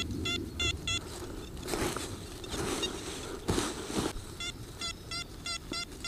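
XP Deus metal detector sounding a quick run of short, high pitched beeps, about three a second, as the coil sweeps over a target that reads as a good signal. The beeps stop for a few seconds while dry leaves rustle, then start again after about four seconds.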